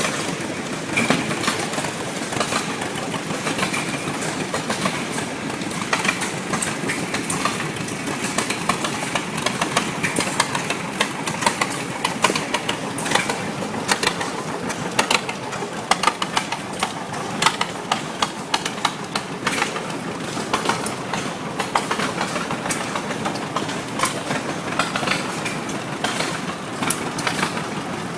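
Antique wood veneer lathe running: a steady mechanical clatter with frequent sharp clicks and cracks throughout.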